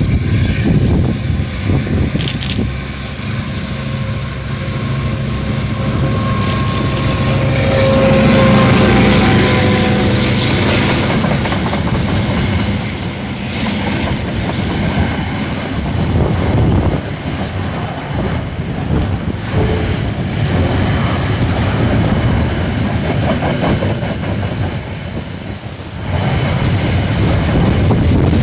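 KiwiRail DL class diesel locomotive passing close by, its engine loudest about eight seconds in. A long rake of container flat wagons follows, rumbling and clicking over the rail joints.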